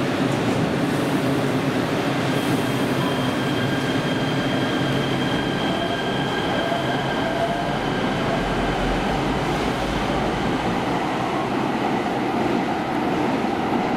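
LA Metro Kinkisharyo P3010 light rail train pulling out of an underground platform. Its electric traction motors whine, the pitch rising as it gathers speed about six seconds in, over a steady rumble of wheels on rail that deepens as the cars pass.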